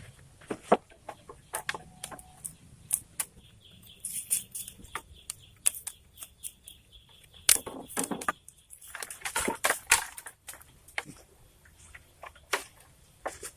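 Bamboo being handled and worked: irregular sharp knocks, taps and clatters with bursts of rustling, busiest from about 7 to 10 seconds in, over a faint steady hiss of rain.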